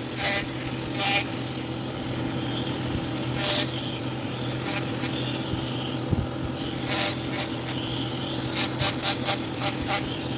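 Short scraping strokes of a tool on wood, spaced a second or more apart, then several in quick succession near the end, over a steady low hum.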